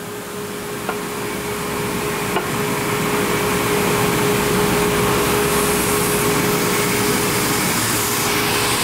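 CNC machining centre running while boring holes in steel BMX crank arms: a steady mechanical hum and hiss with a constant whine, growing louder over the first few seconds and then holding steady.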